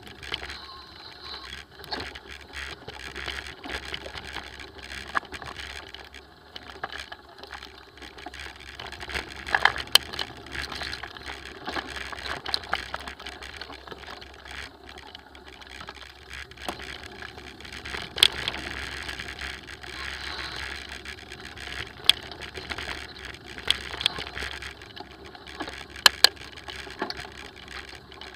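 Mountain bike riding over a rough dirt singletrack: a continuous rattle and rustle of the bike and the camera mount, with several sharp knocks as the wheels hit bumps.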